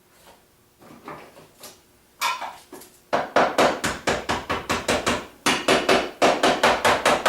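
Hammer rapidly tapping a finish can's lid shut, sharp metallic strikes about four or five a second, starting a couple of seconds in after a few lighter knocks.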